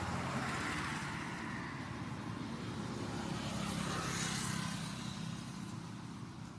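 Steady rumble of motor-vehicle traffic, swelling about three to four seconds in as if a vehicle passes, then easing.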